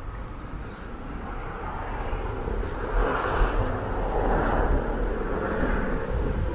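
A vehicle passing on the street, its tyre and engine noise swelling to a peak about halfway through and then easing off, over a constant low rumble.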